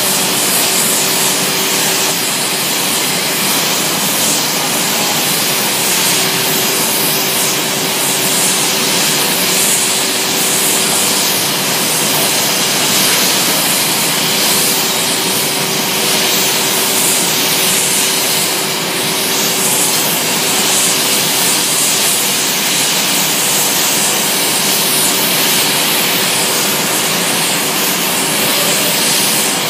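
Ring of gas burners around a glass-blowing mold, the flames rushing in a loud, steady hiss, with a faint steady hum underneath.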